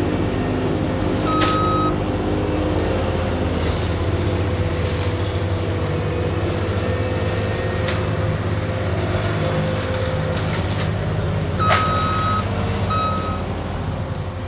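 ASV RT-120 compact track loader with a forestry mulcher, its diesel engine running steadily under load, with a few sharp knocks. Its backup alarm beeps briefly about a second in and again near the end.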